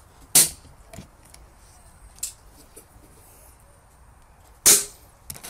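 Two sharp air rifle shots about four seconds apart from a Daystate Air Wolf MCT pre-charged pneumatic rifle, with a couple of lighter clicks between them.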